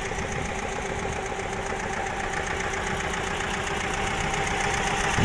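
Motor boat's engine running steadily with a fast, even beat, over the noise of strong wind and choppy water.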